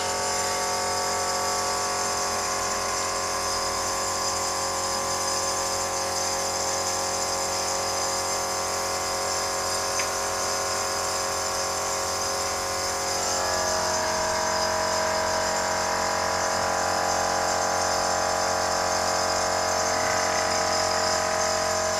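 Electric air compressor running steadily, supplying air to a paint spray gun, a constant motor drone whose pitch shifts slightly about two-thirds of the way through.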